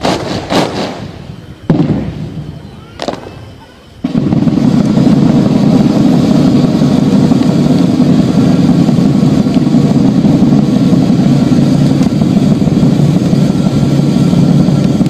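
A few sharp cracks in the first three seconds, consistent with a parade contingent's boots stamping together in response to a shouted drill command. About four seconds in, a loud, steady, low rumbling noise starts abruptly and continues.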